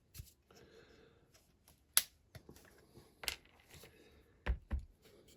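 Small sharp clicks and taps with faint rustling: small objects being handled on a workbench, a few separate knocks spread across the few seconds.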